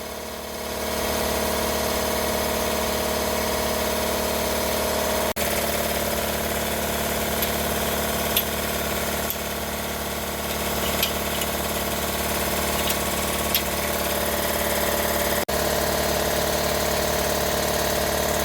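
A steady machine drone with a fixed hum and a few faint light clicks, broken by two brief sudden dropouts, about five and fifteen seconds in.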